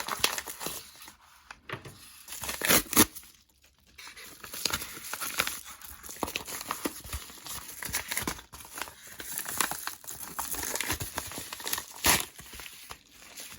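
A mail package being torn and crinkled open by hand, with continuous rustling and a few sharp rips, the loudest about three seconds in and again near the end.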